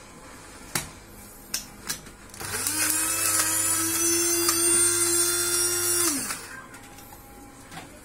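Small electric kitchen grinder running for about three and a half seconds as it grinds garlic cloves into a paste, with a rising whine as it starts and a falling one as it stops. Before it, a few light clinks of a metal spoon against the glass bowl.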